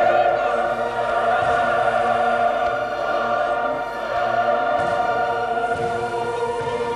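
Classical choral music: a choir holding long sustained chords, the harmony shifting about four seconds in.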